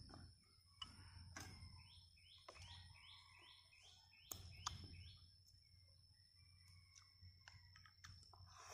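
Quiet eating sounds: faint clicks of chopsticks against a bowl, with a bird in the background giving a quick run of short falling chirps in the first half, over a faint steady high-pitched tone.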